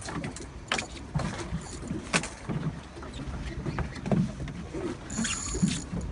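Steady low rumble of a fishing boat with water around the hull, and irregular knocks and clicks of rod-and-reel handling as a hooked fish is reeled in. A brief high-pitched buzz comes about five seconds in.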